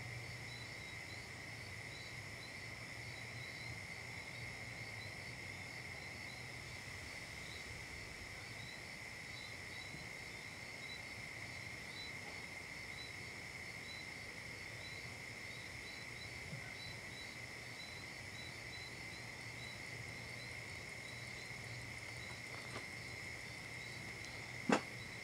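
Night insect chorus: a steady high drone with short chirps repeating regularly through it, over a low steady hum. A single sharp click near the end.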